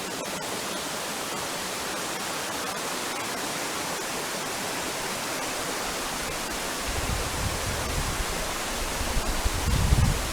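River water rushing, a steady, even noise. About seven seconds in, a low buffeting rumble joins it and grows stronger toward the end.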